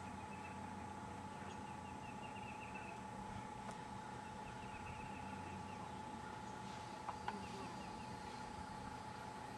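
Faint outdoor ambience: short runs of rapid, high chirping repeat several times over a steady low hum, with two small knocks about seven seconds in.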